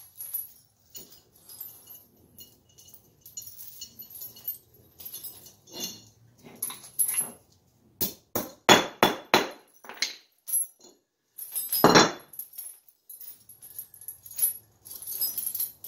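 Steel snow chain links clinking and jingling as they are handled, with a quick run of sharp metal knocks about halfway through and one heavier knock a couple of seconds later.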